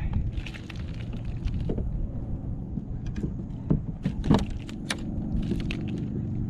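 Scattered clicks and knocks of a fish and fishing tackle being handled in a kayak, the loudest knock about four seconds in, over a steady low rumble.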